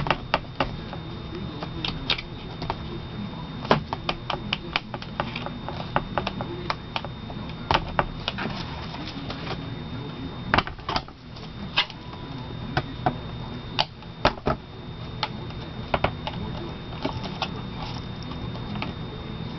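Irregular clicks and taps from hands working a rubber gasket onto a dryer door's rim, the gasket and door knocking and snapping as it is pressed on.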